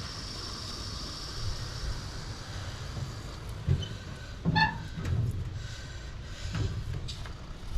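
A steady hiss at the wheelbarrow tire's valve as a can of expanding spray foam is pushed into it, fading out about three seconds in. A short squeaky chirp comes about halfway, with a few knocks and a low rumble underneath.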